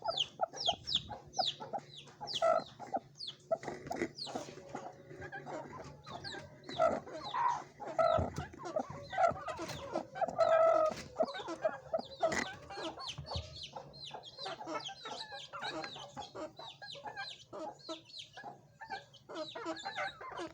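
Chickens clucking in short repeated calls, with many quick, high, downward-sweeping chirps throughout.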